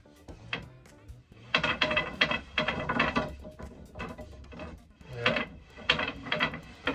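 Wooden slats of a roll-up slatted bed base clattering and knocking against each other and the wooden bed frame as it is unrolled. The knocks come in two quick flurries, one about a second and a half in and another near the end.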